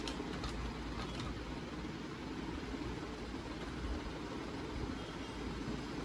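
Steady low background rumble and hiss, with a few faint light clicks in the first second or so as cables and connectors are handled.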